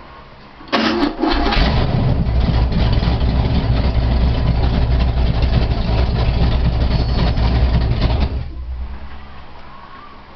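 Petrol engine with a points ignition firing up suddenly under a second in and running loudly for about seven seconds, then cutting out and dying away.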